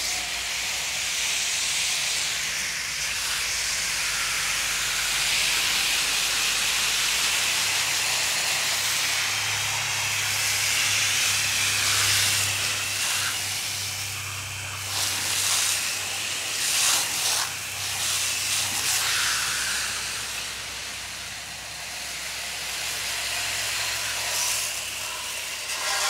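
Garden hose jet spraying water onto a Bryant Evolution heat pump's outdoor coil and base, rinsing off foaming coil cleaner: a steady hiss of spray that swells and dips as the jet moves.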